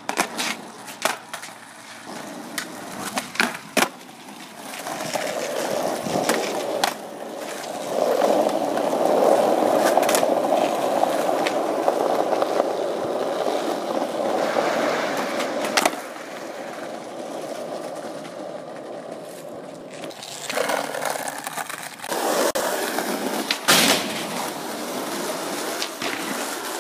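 Skateboard wheels rolling over rough asphalt, a steady grinding rumble through the middle stretch. Sharp clacks of boards hitting the ground come in the first few seconds and again about twenty seconds in.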